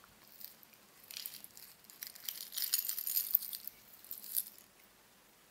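A pile of tangled costume jewellery necklaces, chains and beads, jingling and clinking as one necklace is pulled out of it. The jingling starts about a second in and dies away near the end.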